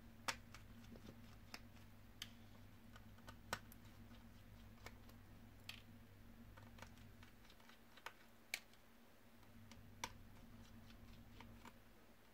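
Faint, irregular small clicks and taps of a Phillips screwdriver and tiny screws working on a TomTom GPS unit's plastic housing, about a dozen over a steady low electrical hum.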